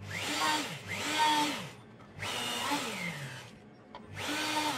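Hand-held rotary tool with a small diamond cutting disc cutting openings into the panel. It runs in repeated short bursts, its motor whine rising and then falling with each one.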